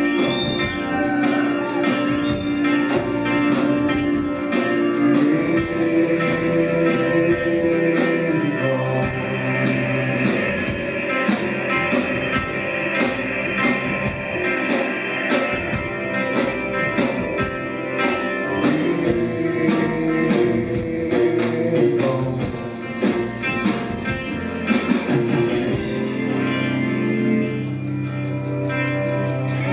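Rock band playing an instrumental passage of a song live, with guitar and drum kit over sustained low notes. About 25 seconds in the drums drop out, leaving held notes.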